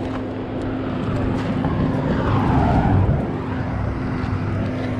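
Motorcycle engine idling with a steady hum. About halfway through the engine noise swells louder, then settles back.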